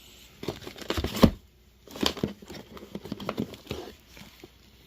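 Crinkling and rustling of plastic MRE ration pouches being handled and sorted, in irregular bursts with a couple of sharper knocks about a second in.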